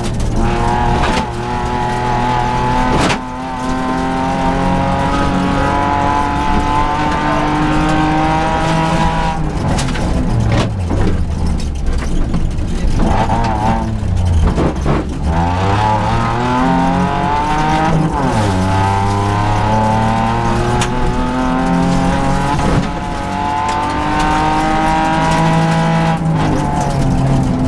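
Rally car engine heard from inside the cabin during a gravel stage, revving hard. Its pitch climbs under acceleration, then drops sharply at each gear change or lift, several times over.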